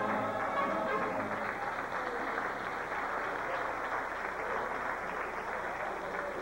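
Audience clapping as a mariachi song ends, with the band's last notes dying away in the first moment.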